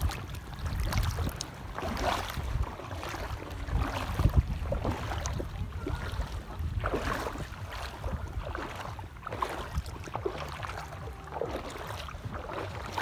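Shallow water sloshing and splashing in uneven strokes about once a second as someone wades through it, over a low rumble of wind on the microphone.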